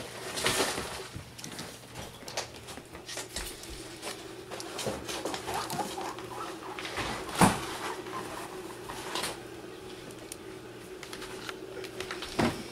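Guinea pigs moving about on a hardwood floor: scattered light clicks and taps of their feet, with a few louder knocks, over a faint steady hum.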